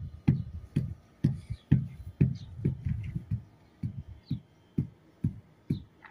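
A string of low percussive thumps, about two a second and slightly uneven, each dropping quickly in pitch with a light click on top.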